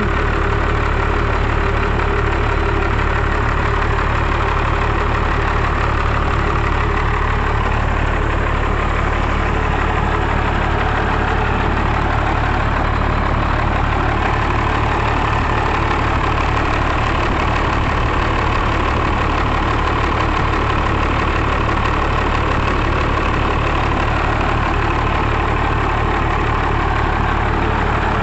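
Cummins 12-valve 5.9-litre inline-six turbodiesel idling steadily, freshly restarted after a new fuel filter and draining water from the filter bowl, and running much better.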